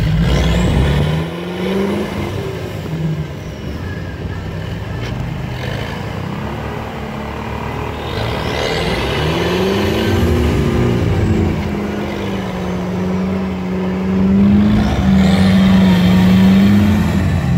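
Off-road UAZ engines revving hard under load as one UAZ tows another, stuck one out of swamp mud on a strap. The engine pitch rises just after the start and again about eight seconds in, then holds high and steady, getting louder near the end.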